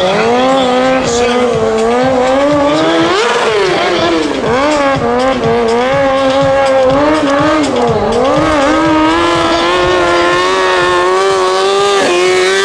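Kawasaki stunt motorcycle's engine held high in the revs while the rider balances wheelies, its pitch rising and falling with the throttle, with sharp swoops about three seconds and eight seconds in.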